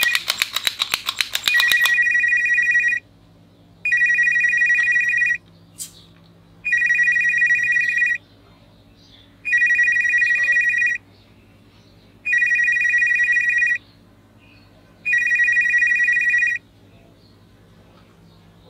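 Toy mobile phone ringing with an electronic ringtone. It opens with a rapid stuttering trill, then a high ring sounds in six even bursts of about a second and a half, each followed by a short pause.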